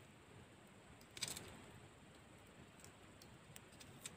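Near silence with a few small clicks, the loudest cluster about a second in: a knife cutting garlic cloves.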